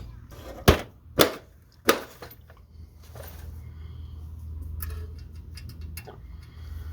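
Sharp snaps of hand tools working the clamp on a rack-and-pinion steering bellows: three snaps about half a second apart near the start, then a low steady hum.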